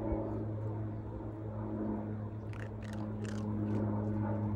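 Steady low drone of an airplane flying over. From about halfway through, short sharp clicks of a raccoon dog crunching dry pet-food kibble come in over it.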